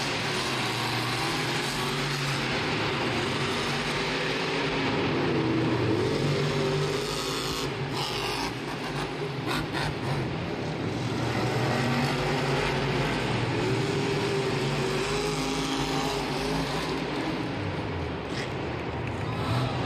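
Monster truck engines running and revving, their pitch rising and falling, over a steady wash of engine noise.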